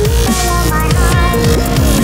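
Electronic dubstep-style background music with a steady beat and repeated sliding bass notes.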